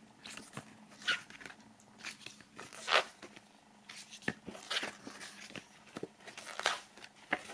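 Pages of a glossy CD booklet being turned by hand: a series of short, soft paper rustles and flicks, the loudest about three seconds in.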